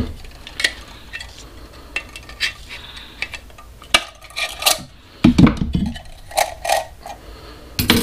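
Scattered metal clinks and knocks as a magnet is pried off a microwave's internals against its own magnetic pull, with a few heavier knocks a little past halfway.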